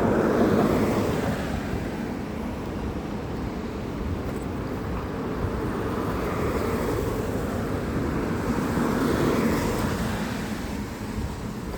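Wind buffeting the microphone and tyre hiss on a wet road while riding in light rain, the noise swelling and fading three times, as with vehicles passing.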